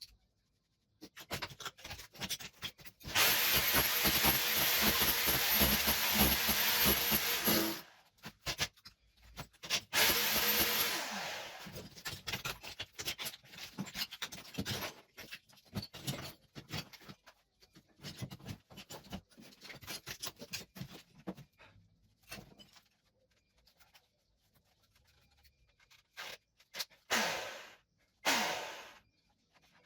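Electric power tool working on the kitchen wall during tile removal. It runs in two long bursts, with scraping and tapping between them, then two short runs near the end that wind down in pitch as it is released.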